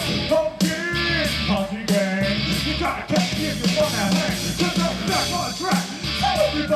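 Song with a singing voice over a steady beat: the music for a live stage dance routine.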